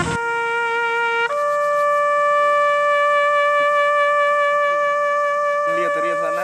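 Background music of long held, wind-instrument-like notes: the pitch steps twice in the first second and a half, then one note is held. Faint wavering chirps come in near the end.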